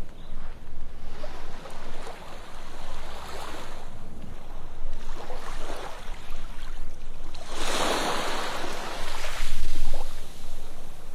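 Ocean waves washing onto a sandy beach, the surf rising and falling in several swells, the biggest wave coming about two-thirds of the way through.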